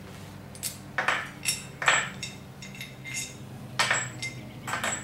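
Metal parts of a dismantled scroll compressor being handled on a workbench, clinking and knocking together: about half a dozen sharp metallic clinks, each with a brief ring, the loudest about two seconds in.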